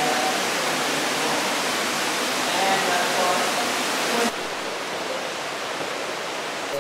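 Steady rushing hiss with faint, distant voices in it; the hiss drops suddenly in level about four seconds in.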